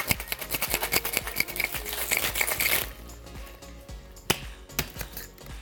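Ice cubes rattling inside a tin-on-tin Boston cocktail shaker shaken hard and fast, a dense rapid rattle that stops about three seconds in; a few single metallic knocks follow. Background music plays underneath.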